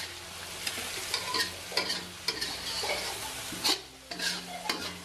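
Blended spice paste sizzling in hot oil in a stainless steel wok, stirred with a metal spatula that scrapes and knocks against the pan every so often.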